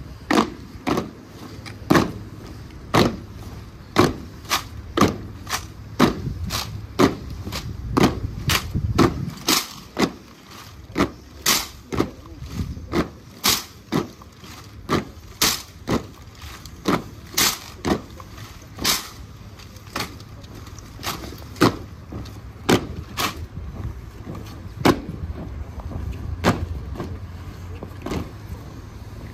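A drill team's rifle drill in unison: hands slapping wooden rifle stocks and boot heels stamping on stone paving, giving dozens of sharp cracks, roughly one a second, some in quick pairs.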